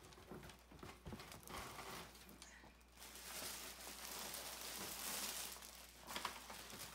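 Clear plastic wrap crinkling and tearing as it is pulled off a skateboard deck, with scattered crackles and a louder stretch of rustling in the middle.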